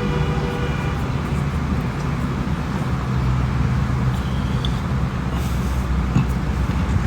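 Road traffic: a vehicle engine running with a steady low rumble.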